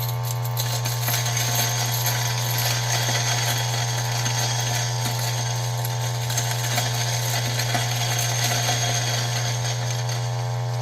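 Ceado E6P flat-burr espresso grinder running steadily, its motor humming under load with a rough crackle as slow-fed coffee beans are ground between the burrs.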